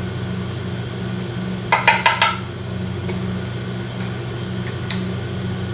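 Four quick metal taps about two seconds in and a single tap near the end: the coffee grinder's lid knocked against a stainless steel mixing bowl to shake out ground spice. A steady low hum of kitchen machinery runs underneath.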